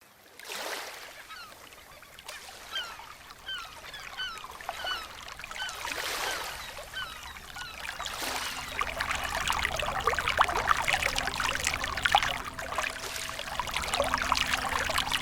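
Waterfall pouring and splashing, growing louder partway through. A bird gives a quick series of short, rising calls over the first few seconds.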